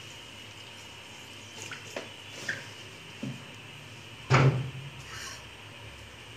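Kitchen handling noises: a few light clicks, then one dull knock about four seconds in, over a faint steady hiss.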